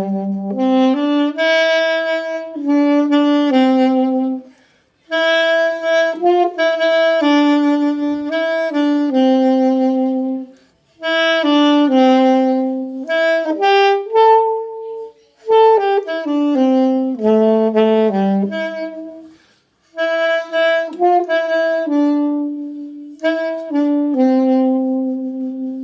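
Alto saxophone played by a beginner: a slow melody of held notes in several short phrases, with brief pauses for breath between them.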